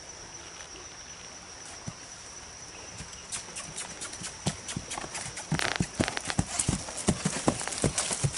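Horses' hooves walking on a dirt woodland trail, a string of irregular soft thuds that starts about three seconds in and grows louder and denser from about halfway.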